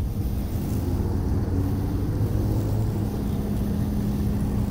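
Heavy tow truck's engine idling steadily, with wind rumbling on the microphone.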